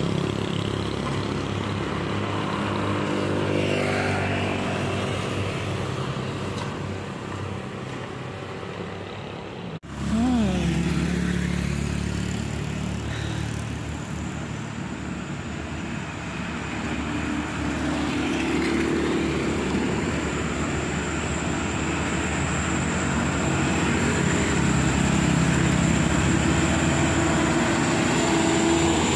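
Road traffic on a hill road: motorcycles and cars passing, their engine pitch sliding as they go by. The sound drops out for a moment about ten seconds in, and towards the end a light truck's diesel engine grows louder as it passes close by.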